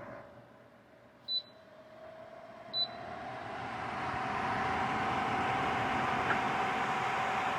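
SEEPER 3-in-1 evaporative cooler: two short beeps from its control panel about a second and a half apart, then its fan spins up over a couple of seconds into a steady whirring hum.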